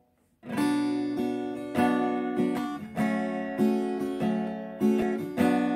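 Acoustic guitar strummed in a steady rhythm of chords, starting about half a second in.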